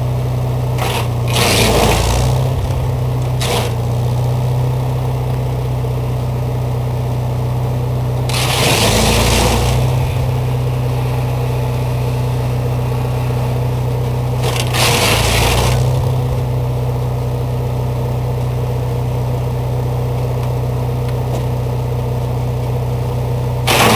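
Wisconsin VG4D air-cooled V4 engine running steadily, driving a Fitchburg wood chipper. Branches are fed in and shredded in several loud rushing bursts of chipping noise, roughly every six seconds.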